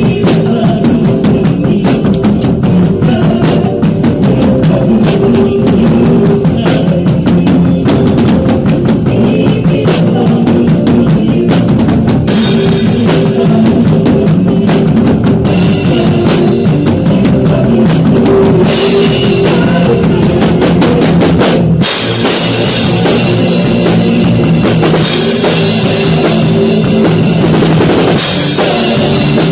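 Live worship-band music led by an acoustic drum kit: kick, snare and cymbal crashes over keyboard, electric guitar and bass. The cymbals grow brighter in the second half, with a brief break about three quarters of the way through before the band comes back in.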